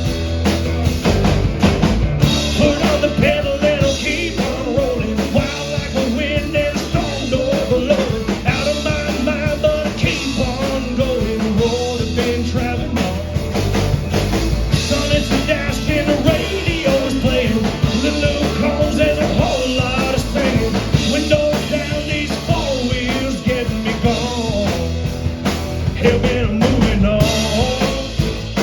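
Rock and roll song played by a full band, with a steady drum-kit beat and bass under a lead melody that bends and wavers in pitch.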